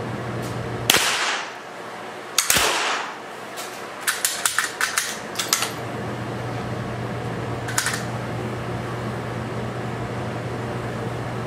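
Two rifle shots about a second and a half apart, each ringing out and fading in a small indoor range. A quick run of sharp clicks follows a couple of seconds later, with two more a few seconds after, over a steady low ventilation hum.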